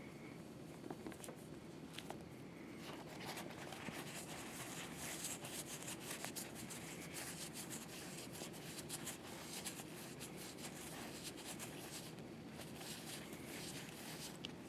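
Faint, scratchy rubbing of a paper towel against a small metal washer, the tensioner plate from a Tippmann Boss stitcher's primary tensioner, as metal polish is buffed off it toward a mirror finish. The rubbing thickens about three seconds in and eases off near the end.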